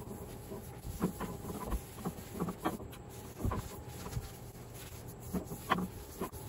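Cloth rag rubbing finish into a wooden slab tabletop, giving short, irregular squeaks and scuffs as it is pushed back and forth, over a faint steady hum.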